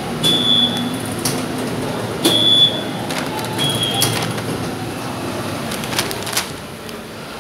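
Octopus card readers at turnstile gates beeping three times, each one short, steady, high-pitched beep as a card is tapped, with sharp clicks from the turnstiles between them.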